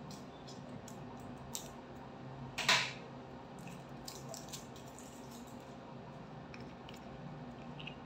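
Handling noises from a plastic tube of carbon gel: scattered small clicks and taps, with one louder brief scrape about two and a half seconds in, over quiet room tone.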